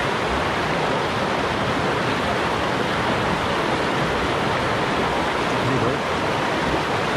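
Shallow mountain stream rushing steadily over rocks and boulders in riffles and small rapids close by, a continuous even rush of water.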